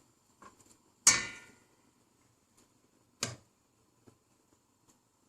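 Two sharp clinks of metal kitchenware, a utensil knocking against a cooking pot. The first, about a second in, is loud and rings briefly; the second, about two seconds later, is shorter.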